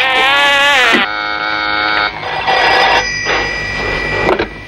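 Comic telephone-line sound effects: a wavering electronic tone for about a second, then steady tones over a hiss that cut off suddenly near the end.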